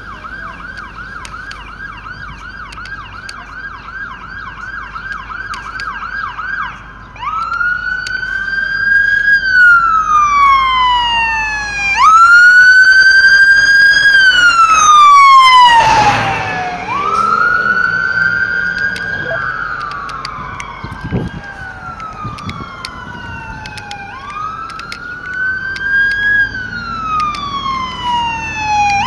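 Electronic emergency-vehicle sirens of a responding ambulance and a command SUV: a fast yelp for the first several seconds, then a slow rising-and-falling wail that grows louder. It peaks just past the middle with a rush of engine and road noise, and a second siren's wail overlaps it after that.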